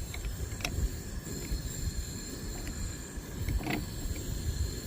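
Wind buffeting the microphone, a steady low rumble, with a couple of light clicks.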